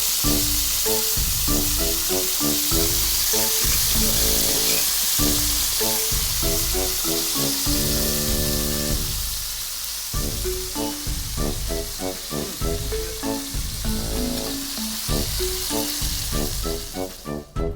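Pork steak sizzling steadily as it cooks over a wood fire, under background music with a plucked melody. The sizzling cuts off suddenly near the end, leaving only the music.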